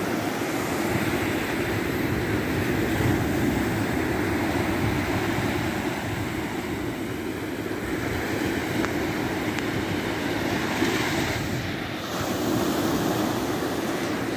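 Sea waves breaking and washing up onto a sandy beach: a steady surf wash, dipping briefly about twelve seconds in.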